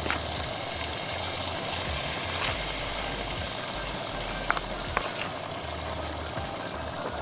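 Steady hiss of a steaming frying pan of meat and tomato sauce simmering and reducing on the stove, with a few light clinks of a spoon against a bowl about four and a half and five seconds in.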